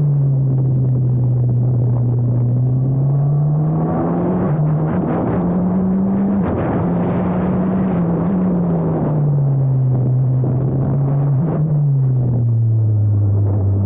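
Formula Abarth single-seater's 1.4-litre turbocharged four-cylinder engine under acceleration, climbing in pitch with quick upshifts. It then falls away as the car slows, with a sharp jump in pitch partway down, and picks up again near the end. A few sharp knocks come in the middle.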